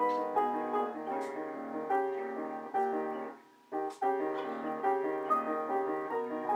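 Piano being played: a steady run of notes, breaking off briefly about three and a half seconds in, then resuming.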